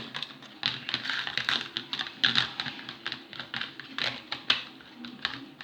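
Freshly made slime being handled and pulled from its bowl: a quick, irregular run of sticky clicks and squelches.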